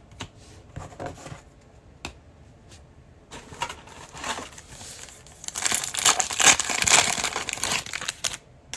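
Foil wrapper of a Prizm football trading-card pack being torn open and crinkled. A few light handling clicks come first, then a loud, dense crinkling rustle about five and a half seconds in that lasts nearly three seconds.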